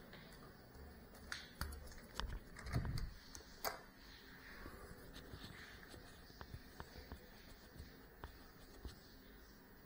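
Faint handling noise from a GEPRC CineLog35 FPV drone being picked up by hand: a cluster of knocks and rubbing between about one and four seconds in, then light scattered ticks as it is held. The motors are not running.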